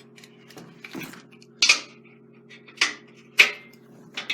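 Metal clanking and clinking as a welder's ground clamp is handled against metal, with three sharper ringing clanks in the second half.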